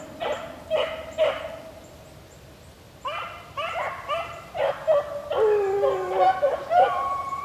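A pack of beagles baying as they run a rabbit's track. A few barks come first, then a short lull, then from about three seconds in several dogs bay together, with longer drawn-out bawls near the end.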